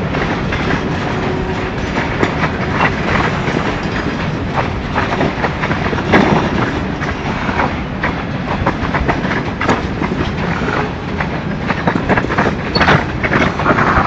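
Railroad hopper cars of a freight train rolling past, steel wheels clicking over rail joints over a steady rumble.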